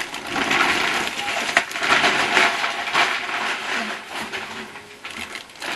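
Plastic grocery packaging being handled, crinkling and rustling with sharp little crackles, fading toward the end.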